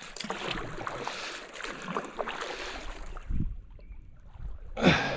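Water splashing and swishing around a small boat as a wooden pole is pushed into the shallow riverbed and drawn back, several irregular strokes, the loudest near the end.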